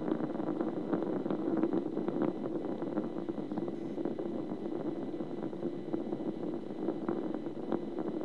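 Space Shuttle Endeavour's launch rumble during ascent, a steady roar with scattered crackle, heard through a television's speaker.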